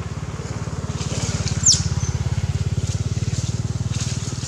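An engine running steadily with an even low pulse. A short high squeal sweeps down in pitch about a second and a half in.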